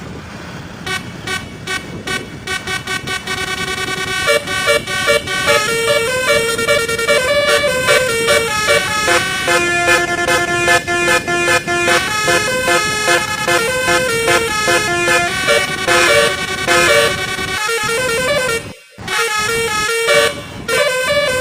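Bus 'basuri' musical air horn playing a fast melody of short notes stepping up and down in pitch. The tune is interrupted by brief breaks near the end.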